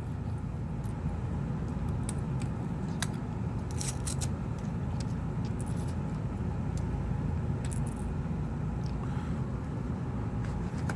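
Steady low rumble in the background, with a few light clicks and taps of small tools and tablet parts being handled during a battery replacement.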